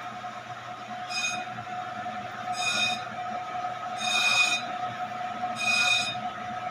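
Brake lathe turning a brake drum with a steady hum, while the carbide cutting bit, just brought against the drum, gives a high-pitched squeal four times, about every second and a half, as it starts scraping the drum face for resurfacing.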